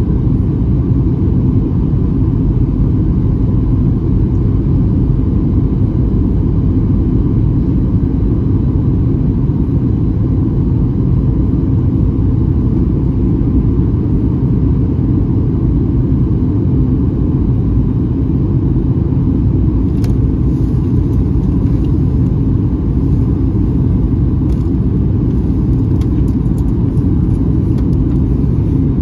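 Steady low rumble inside the cabin of a Boeing 737-900ER in flight: its CFM56-7B turbofan engines and the airflow over the fuselage. A few faint clicks come in about two-thirds of the way through.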